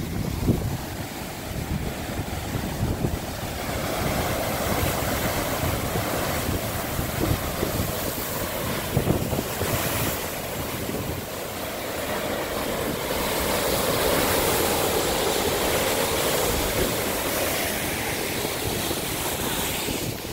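Ocean waves surging and breaking in a steady wash that rises and falls in long swells, with wind buffeting the microphone.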